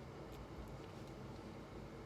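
Steady low background hum of a quiet study room, with a few faint light clicks near the start.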